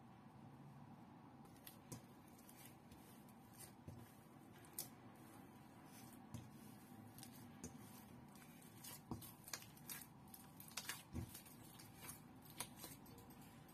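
Faint sounds of hands kneading butter into a chocolate bread dough in a stainless steel bowl: scattered light clicks and taps, more frequent in the second half.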